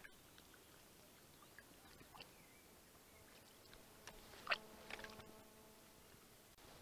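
Near silence: faint outdoor quiet broken by a few soft clicks about four and a half and five seconds in, with a faint steady hum for about two seconds around them.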